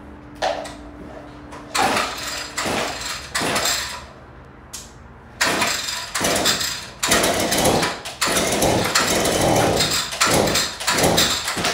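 Echo SRM-2620 two-stroke string trimmer being pull-started from cold: a series of sharp yanks on the recoil starter rope, each a short burst of cranking, coming quicker near the end.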